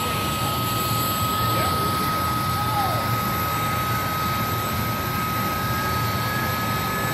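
CH-47 Chinook tandem-rotor helicopter running on the ground, rotors turning: a steady, even rush of engine and rotor noise with a constant high turbine whine over it.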